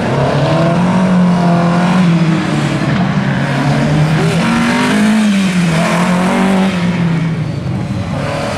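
Talbot Sunbeam rally car's engine revving hard on a tight stage, its note rising and falling over and over as the driver accelerates and lifts through the bends.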